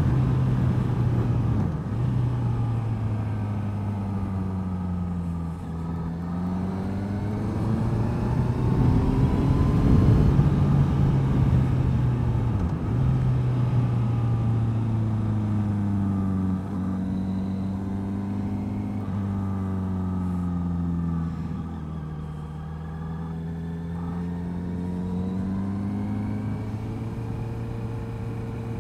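Honda CBR650F's inline-four engine through an IXIL aftermarket exhaust, running as the bike is ridden, its revs climbing and falling several times.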